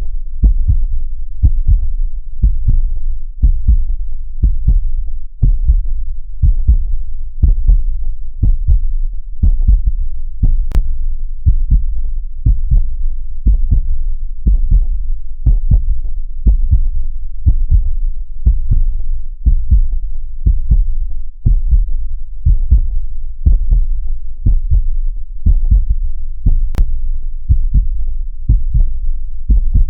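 Heartbeat sound meant to mimic what a baby hears in the womb: a steady, even rhythm of deep, low thumps.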